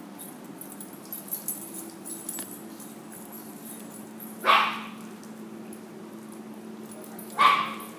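A small dog barking twice, single sharp barks about three seconds apart, over a steady low hum.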